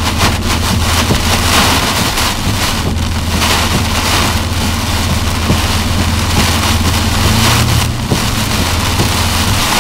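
Heavy rain hitting the windshield and roof, heard from inside the car's cabin, over the vehicle's steady low drone as it drives on the flooded road.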